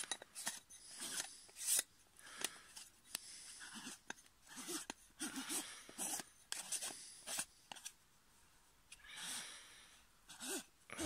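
Metal screw-on front cover of an OpticStar AR90S refractor being turned by hand onto the tube's threads: a run of short scraping strokes, easing off about eight seconds in, then a longer scrape and a few more near the end.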